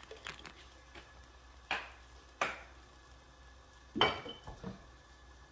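Kitchenware being handled on a gas stovetop: a handful of separate sharp knocks and clacks of things being set down, the loudest about four seconds in.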